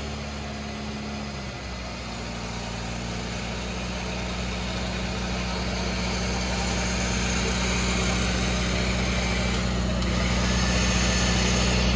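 Off-road 4x4's engine running steadily at low revs. Its note changes about a second and a half in, then holds while growing gradually louder.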